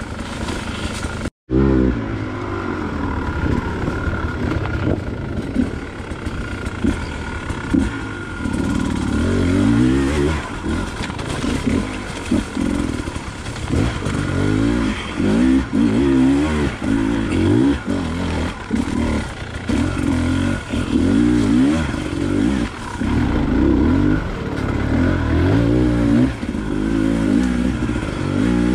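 Off-road dirt bike engine being ridden, its revs rising and falling again and again as the throttle is worked. The sound drops out completely for an instant about a second and a half in.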